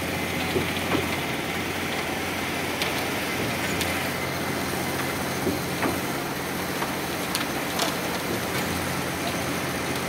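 An engine runs steadily while a concrete pump works a pour, with pairs of short, sharp knocks about every two seconds.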